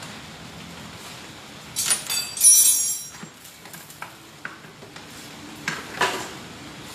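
Metal tools and parts being handled: a loud rattling clatter with a brief ringing clink about two seconds in, then a few light clicks and another knock near the end.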